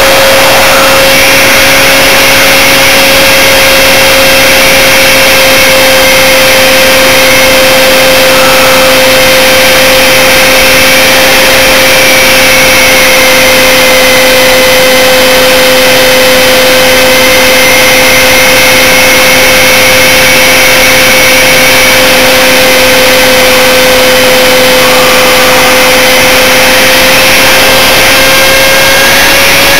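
Electric motor and propeller of an Electrafun RC plane heard from a camera on its nose: a steady high whine under heavy wind rush. The motor comes on right at the start, and its pitch edges up near the end.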